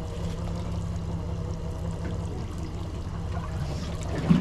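Honda 225 four-stroke outboard idling steadily, with water splashing and trickling at the stern. A single sharp knock near the end.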